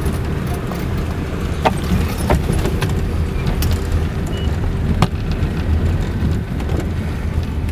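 Steady low rumble of a car's engine and road noise heard from inside the moving car, with several brief sharp clicks scattered through it.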